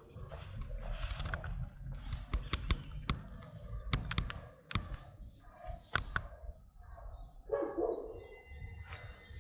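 Rapid clicks and rustling close to the microphone with a low rumble, then a dog barking a couple of times about three-quarters of the way in.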